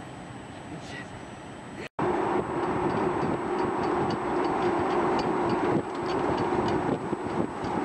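Steady quieter noise, then a brief dropout about two seconds in, after which a louder steady road-and-engine rumble of a moving vehicle, heard from on board, takes over, with faint regular ticking riding on it.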